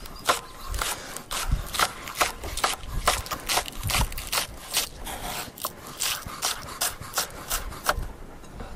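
Kitchen knife chopping green vegetables on a wooden cutting board: a steady run of sharp taps, about three a second.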